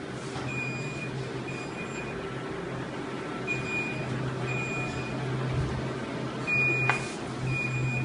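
Steady low hum of air-conditioning plant machinery, with short high electronic beeps that come in pairs about a second apart, every few seconds. A sharp click sounds near the end.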